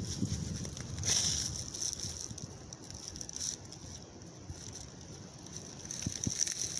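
Dry leaves and twigs crunching and rustling underfoot and against a handheld phone as someone moves through brush, with a few sharp snaps near the end and a steady high hiss in the background.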